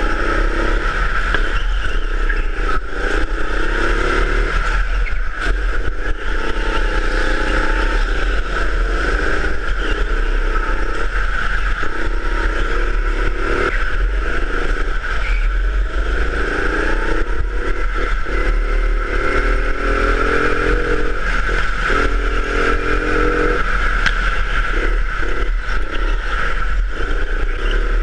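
Go-kart engine heard onboard, its pitch climbing and dropping back again and again as the throttle is opened on the straights and lifted for the corners, over a steady high-pitched drone.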